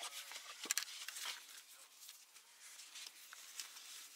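Handling noise of a camera being picked up and turned over in the hands: small clicks, taps and rubbing, with one sharp tap a little under a second in.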